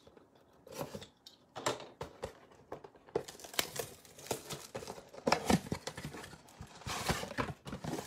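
Topps Chrome mega box of trading cards being torn open by hand: its wrapping and cardboard crinkle and tear in irregular crackles, busier from about three seconds in.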